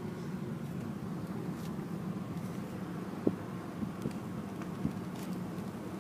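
Car cabin noise while driving slowly: a steady low rumble of engine and tyres, with two short knocks about three and five seconds in.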